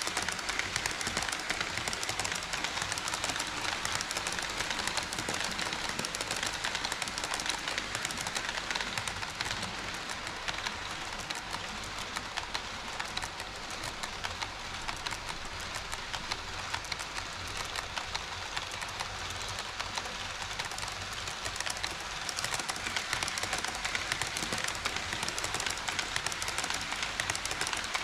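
HO scale model train running on KATO Unitrack: a steady, fast clatter of wheels and motor ticking over the plastic track and rail joints. It grows louder near the start and again near the end, with a softer stretch in the middle.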